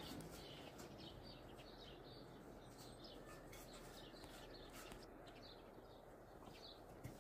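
Faint birdsong: short high chirps repeating about twice a second over a quiet steady background hiss, with a soft knock near the end.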